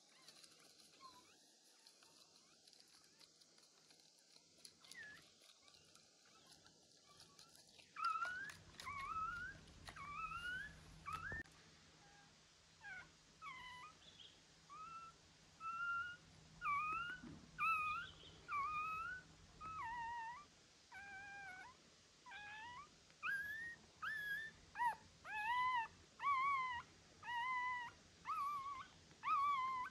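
A young puppy whimpering and crying: a long run of short, high-pitched cries that bend up and down, starting about a quarter of the way in and coming faster toward the end.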